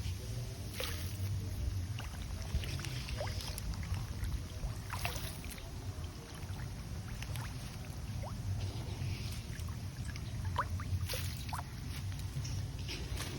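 Catfish splashing at the water surface as they take feed: scattered small splashes and drips with short rising plops, over a steady low rumble.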